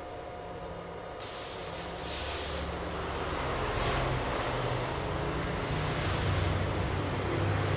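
A firework hissing as it sprays sparks: a loud rushing hiss that starts suddenly about a second in and surges and eases in waves.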